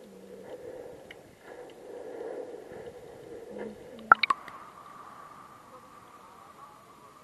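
Sea water sloshing against a waterproof camera housing at the surface, then a quick cluster of sharp knocks about four seconds in as it goes under. After that, muffled underwater sound with a faint steady tone.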